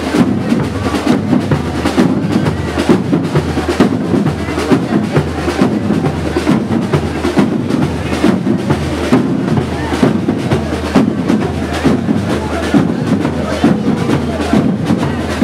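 Drums playing a steady, driving beat, with voices mixed in.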